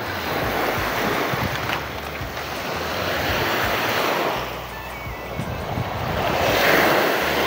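Small waves breaking and washing up a sand beach, the surf swelling twice, with wind rumbling on the microphone.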